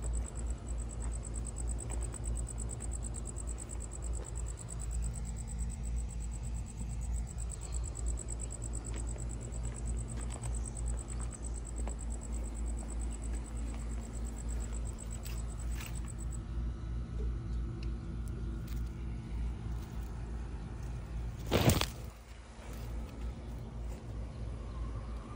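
A cricket trilling steadily at a high pitch, stopping about two-thirds of the way through, over a low steady rumble. A single sharp knock comes near the end.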